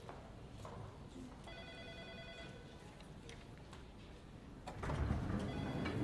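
Elevator arrival chime: an electronic tone held for about a second, a second and a half in, and again near the end. Just before five seconds a louder low rumble comes in as the elevator doors open.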